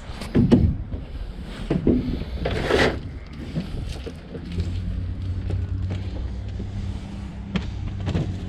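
Knocks and clunks of junk being handled in the first few seconds. About halfway through, a vehicle engine's steady low hum sets in and keeps running.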